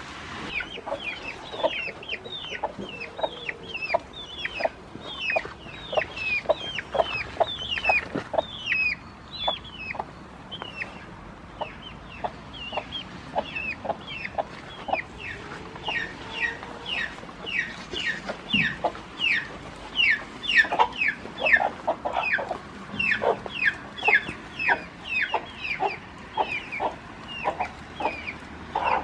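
Chickens, a hen with chicks: a steady run of short, high, downward-sliding peeps, two or three a second, mixed with lower clucks.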